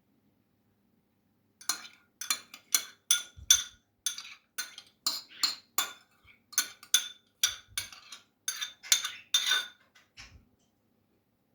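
A metal utensil clinking against a bowl over and over, about three strikes a second, as in mixing by hand; it stops near the end.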